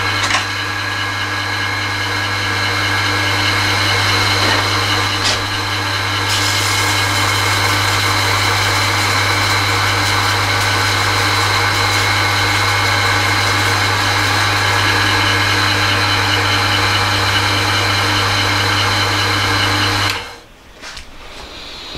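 Homemade slow-speed bench grinder running with a steady low electric-motor hum, its wheel grinding a chipped tungsten lathe bit. The hum cuts off suddenly about twenty seconds in as the grinder is switched off.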